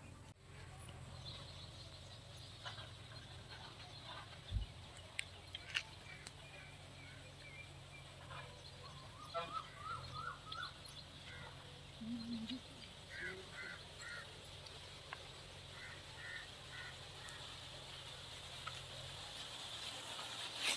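Faint rural ambience with scattered short bird calls, some in quick runs of two or three, and a few sharp clicks.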